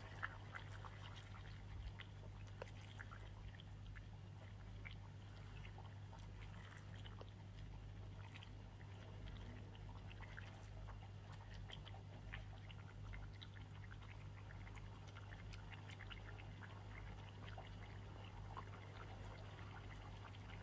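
Pot of tomato stew cooking: faint, scattered bubbling pops over a steady low hum.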